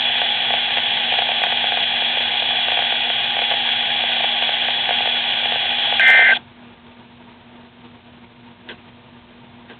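Midland WR-120EZ weather radio's speaker giving a steady hiss of dead air, then a short burst of data tones about six seconds in: the end-of-message code of the alert broadcast. The speaker then cuts off suddenly, leaving faint room tone and one small click.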